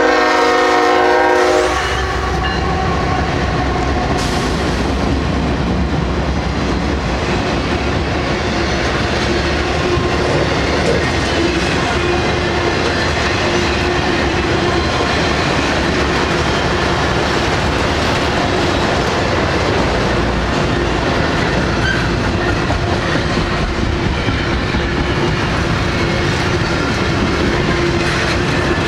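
A Norfolk Southern freight train passing at speed: the lead GE ES44AC locomotive's horn is sounding and cuts off about two seconds in, then the locomotives and a long string of autorack and double-stack container cars roll by with steady wheel and rail rumble and clickety-clack.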